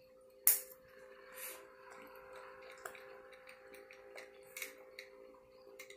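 Handling noise from a replica championship belt and its packaging: a few sharp clicks and light rustling, the loudest click about half a second in and another near the end.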